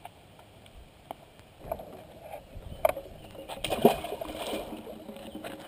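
A northern pike splashing into shallow water as it is released off a concrete ramp, loudest about four seconds in, with a few light knocks and scuffs of handling before it.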